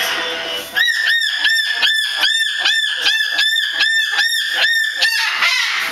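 Umbrella cockatoo calling a rapid run of about a dozen short, identical calls, nearly three a second, starting about a second in and stopping near five seconds. The owner thinks it is a mating call.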